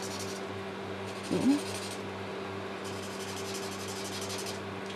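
Winsor & Newton ProMarker alcohol marker nib scrubbing back and forth on paper in short spells, over the steady hum of an electric fan. About a second and a half in, a brief rising hum from a voice.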